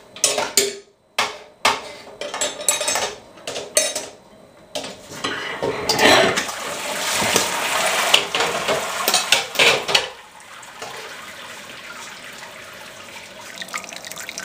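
Stainless-steel malt pipe of a Speidel Braumeister being lifted out of the kettle: metal clanks and knocks, then about five seconds in, wort gushes and splashes out of the raised grain pipe back into the kettle. Near the end it eases to a softer trickle as the grains drain.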